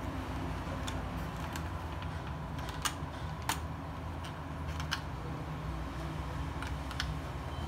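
Scattered sharp clicks and taps of Rotring Isograph technical pens and instruments being handled and set into their plastic case tray, about ten in all, the loudest about three seconds in, over a steady low hum.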